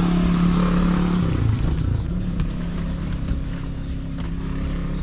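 A motor vehicle's engine running, a steady low hum that drops off about a second and a half in and then carries on softer, fading gradually.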